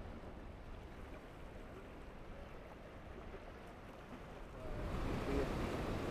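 Steady outdoor wind and surf noise with a low rumble, growing louder about four and a half seconds in.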